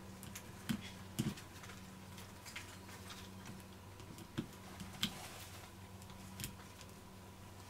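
A handful of light clicks and taps, spaced irregularly, from multimeter test probes being touched against a carbon-fibre drone frame and its connectors during continuity testing, over a faint steady hum.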